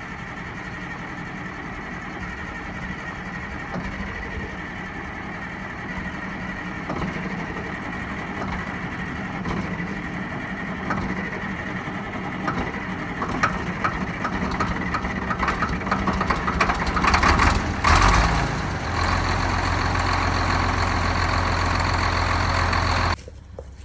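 60-year-old bulldozer's engine started and running. It rattles irregularly partway through, then settles into a loud, steady low drone that cuts off abruptly near the end.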